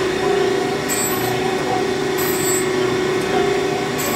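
Brown & Sharpe 818 Micromaster Series II surface grinder running, its spindle giving a steady hum while the wheel grinds dry without coolant, a hiss with a brief higher edge that comes back about every second and a half as the table passes.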